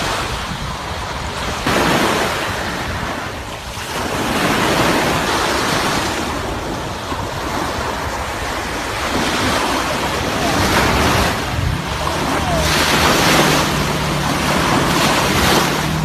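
Small waves breaking and washing up onto a sandy beach, swelling and easing every few seconds, with wind buffeting the microphone. A low steady hum joins near the end.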